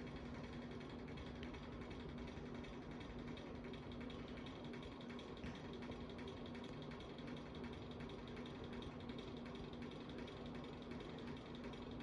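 A 52-inch Bahama hugger ceiling fan running at speed: a steady motor hum with faint, rapid mechanical ticking and creaking from the spinning fan.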